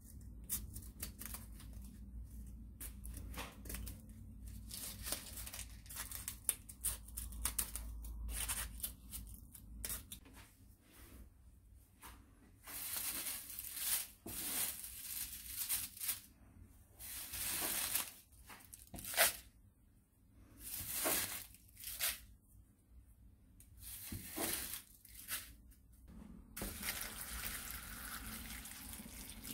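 Scissors snipping a brown paper bag into small scraps, a quick run of short cuts. Then louder rustling bursts as the paper scraps are gathered into a plastic bowl, and near the end a steady stream of water pouring onto the scraps in the bowl to soak them.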